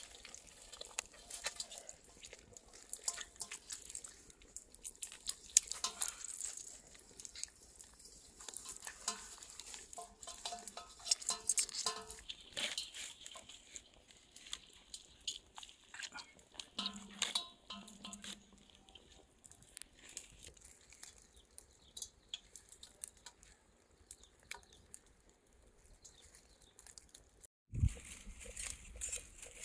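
Scattered small clicks, taps and crinkling from food and kitchen utensils being handled during cooking, with a sudden low thump near the end.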